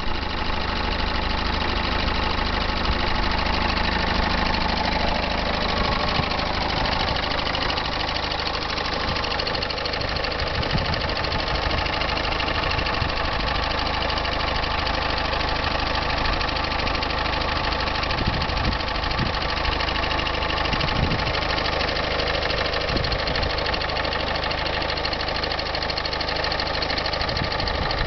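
Peugeot 206 SW's 1.4 HDi diesel engine idling steadily, with the rattling diesel knock throughout; the owner reports a strange noise from the left side of the engine that remains undiagnosed.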